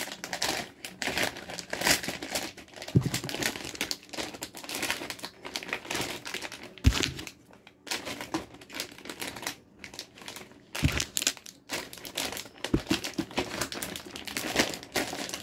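Plastic and card packaging of a stationery kit crinkling and rustling as the items are packed back in, with a few dull knocks now and then.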